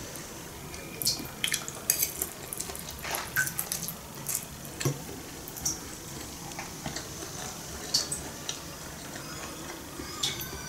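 Metal fork clicking and scraping against a china plate as thin noodles are picked up and eaten: a scatter of small, sharp clinks, thickest between about one and five seconds in, with a few more near the end.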